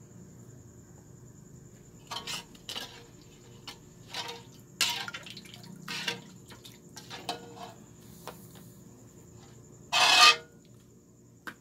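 Crab in coconut-milk sauce being stirred in a cooking pot: several short bursts of liquid sloshing and clatter, the loudest about ten seconds in.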